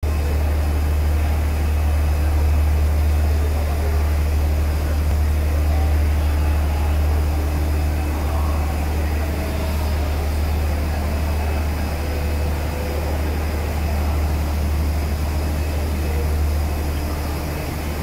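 A running ABC three-layer 1600 mm plastic film machine: a steady mechanical drone with a strong low hum under an even wash of factory noise.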